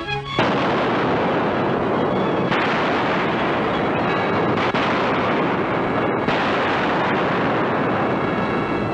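Steam locomotive blowing off steam through an opened valve: a loud, steady rushing hiss that starts abruptly about half a second in, with a brief break near six seconds.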